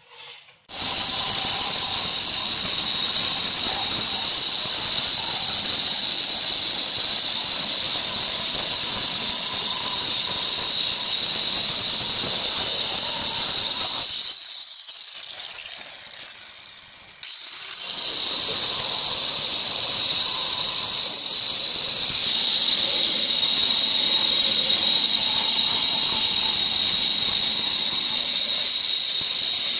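Handheld electric stone cutter cutting a black granite slab: a loud, steady, high-pitched screech. It drops away for about three seconds midway, then resumes.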